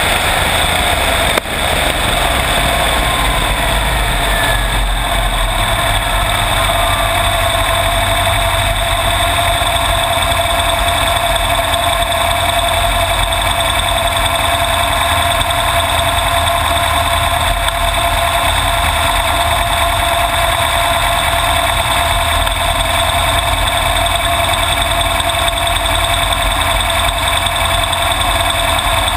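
Dragster's 565-cubic-inch V8 running steadily at low speed as the car rolls along after its pass. Over the first several seconds a whine falls in pitch, and there is one sharp click about a second and a half in.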